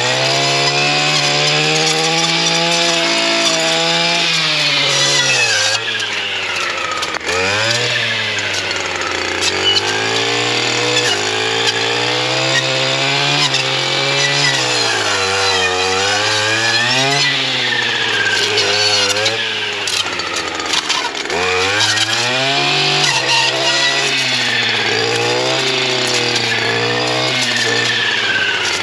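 STIHL FS 240R brush cutter's two-stroke engine running at high revs with a saw-chain blade, the pitch sagging and recovering again and again as the blade bites into saplings and branches and is pulled free.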